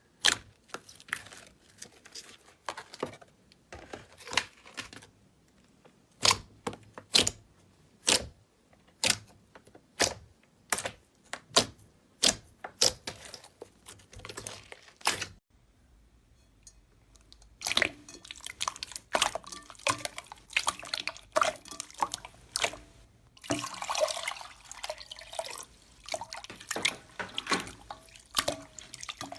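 Slime being squeezed and poked by hand, giving a string of sharp wet clicks and pops. They come one or two a second at first, then turn into a denser crackling from a little past the middle.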